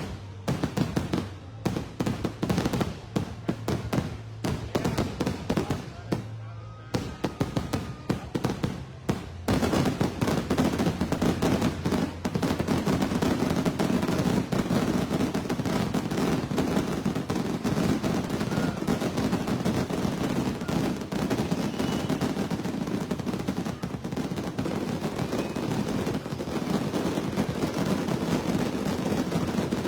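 Aerial fireworks display: separate sharp bangs and booms, then, about nine seconds in, a rapid continuous barrage of overlapping bangs and crackles.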